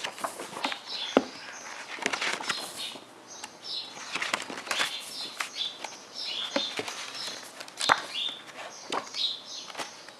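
Pages of a hardcover photo book being turned and handled, with paper flaps and sharp clicks, the loudest about a second in and near the end. Birds chirp in the background throughout.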